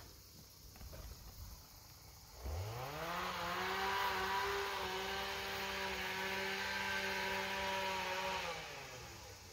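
Chainsaw revving up sharply about two and a half seconds in, holding a steady high pitch at full throttle for about six seconds, then winding down near the end.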